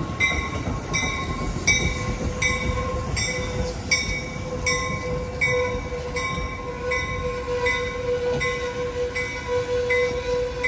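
Passenger train rolling slowly into a station with its warning bell ringing steadily, about three strikes every two seconds, over the low rumble of the cars. A steady high squeal sets in about a second in as the train slows.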